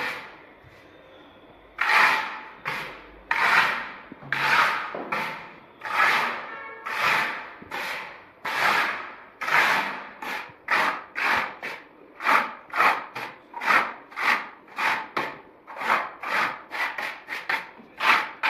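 Plastic float scraping across a wet rustic texture coat on a wall, in repeated rubbing strokes that form the texture's grain. After a short pause at the start the strokes come about one every 0.7 s, then quicken to about two a second midway through.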